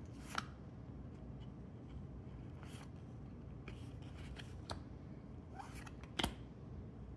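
Magic: The Gathering cards from a booster pack being handled: a handful of short flicks and rustles scattered over low steady background noise, the sharpest about six seconds in.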